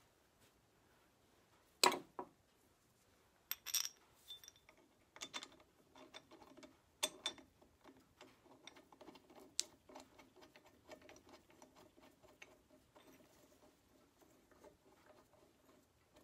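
Small metal parts and hand tools being handled on a workbench while a tractor's hydraulic lift cover is assembled. A sharp clink about two seconds in, then a run of light clicks, taps and metallic rattles.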